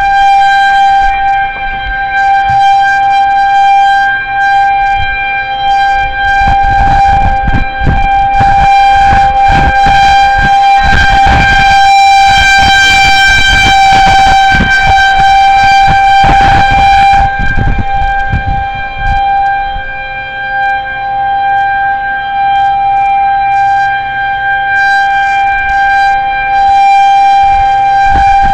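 Federal Signal 2001-130 outdoor warning siren sounding a steady, unbroken tone for a tornado warning, very loud, with wind rumbling on the microphone underneath.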